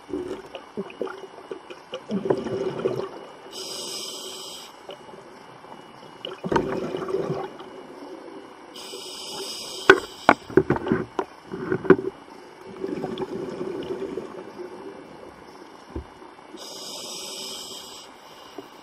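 Scuba diver breathing through a regulator underwater: three hissing inhalations, each followed by a bubbling, rumbling exhalation.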